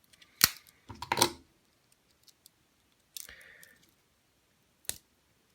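Swiss Army-style pocket knife being handled: its tools click sharply as they snap against their springs, with another short clicking rattle about a second in and a brief scrape of metal a little over three seconds in.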